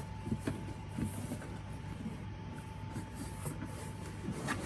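Packaging being handled during an unboxing: scattered soft rustles and small clicks of paper and cardboard, with a sharper click near the end, over a steady low hum and a faint steady high tone.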